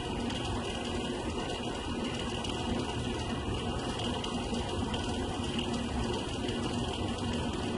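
Graphics card cooling fan on a PowerColor R9 290 PCS+ running with a steady mechanical rattle over a faint hum. This is the abnormal noise the owner has traced to one of the card's fans.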